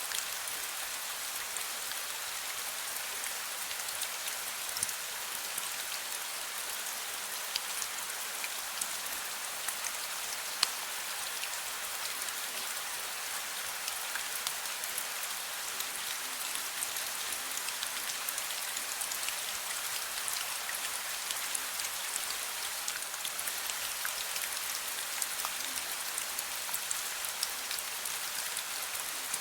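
Steady rain falling: an even hiss sprinkled with many small, sharp drop ticks.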